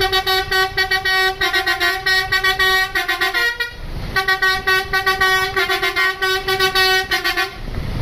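Bus telolet 'basuri' horn, a multi-tone musical horn, playing a flute-like tune in two loud phrases with a brief break near the middle. A steady low note sounds under quickly changing, stuttering higher notes.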